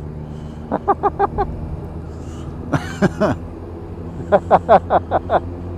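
Laughter in quick bursts of short "ha-ha" syllables, about a second in, again around three seconds and near the end, over the steady low drone of a BMW R1250 RT motorcycle riding along.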